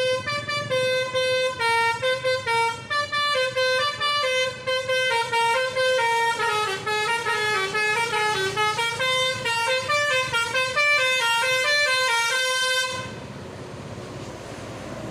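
Bus telolet "basuri" musical air horn playing a quick tune of short stepping notes. It cuts off suddenly near the end, leaving a steady rushing noise.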